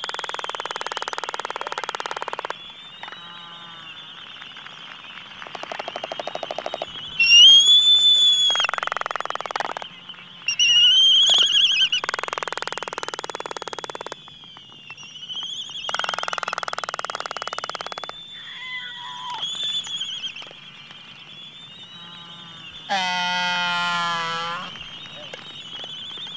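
Laysan albatrosses in courtship display: bursts of rattling bill-clapping, each about two seconds long, alternate with whistling calls that rise and fall in pitch. Near the end comes a longer drawn-out call.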